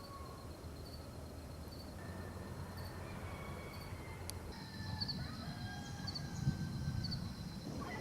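Rural outdoor ambience: a steady high insect trill with pulsed chirps, several thin whistled bird calls, and a low rumble that swells around six to seven seconds in.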